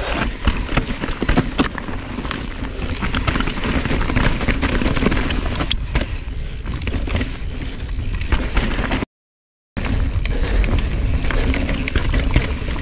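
Mountain bike riding fast down a rough trail: tyres and frame clattering over rocks and roots, with a steady rush of noise and many sharp knocks. The sound cuts out for a moment about two-thirds of the way through.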